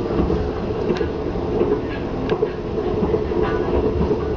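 Inside a moving KLIA Ekspres electric train: a steady running rumble and hum, with a few sharp clicks from the wheels on the track.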